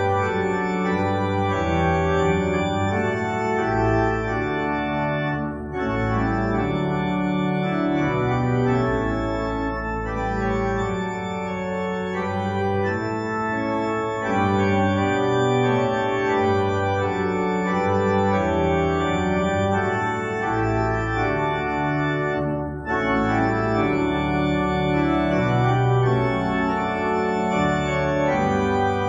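Organ playing slow, sustained chords over a moving bass line, with short breaks between phrases about six seconds in and again about twenty-three seconds in.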